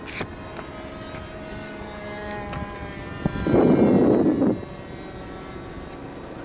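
Radio-controlled model airplane's motor whining overhead, its pitch drifting slightly as it flies past. A gust of wind on the microphone about three and a half seconds in is the loudest sound.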